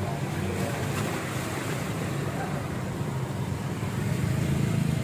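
Steady low rumble of a moving car heard from inside the cabin: engine and tyre noise on a wet road, growing a little louder near the end.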